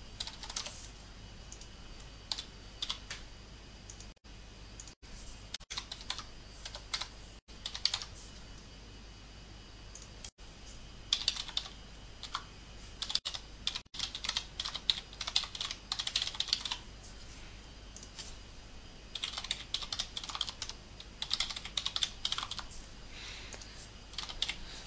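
Typing on a computer keyboard in bursts: scattered keystrokes at first, then quick runs of typing from about eleven to seventeen seconds in and again from about nineteen to twenty-three seconds in.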